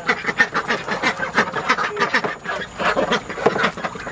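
A flock of domestic ducks quacking, many rapid short quacks overlapping without a break.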